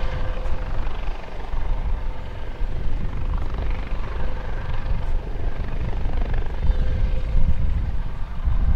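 US Coast Guard MH-65 Dolphin twin-turboshaft helicopter flying low: steady rotor and turbine noise, mostly a heavy low rumble with a faint steady whine above it.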